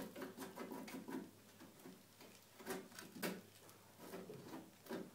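Hand picking and scraping at flaking rust on the edge of a corroded hole in a vehicle's sheet-metal wheel arch: faint scratches and small clicks, a quick cluster at first, then a few separate ones.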